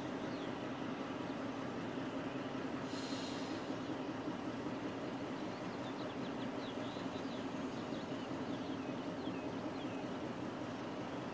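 Diesel locomotives running steadily at a distance in a rail yard, with a short air hiss about three seconds in and faint bird chirps later.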